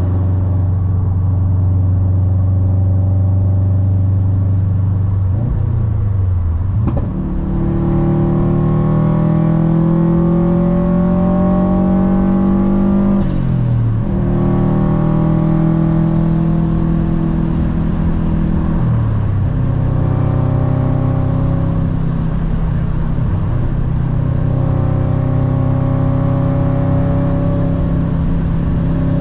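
Subaru WRX STI's turbocharged flat-four engine with an aftermarket Invidia exhaust, heard from inside the cabin while accelerating hard through the gears. The engine note climbs and drops back at upshifts about seven, thirteen and nineteen seconds in, then holds steady at speed.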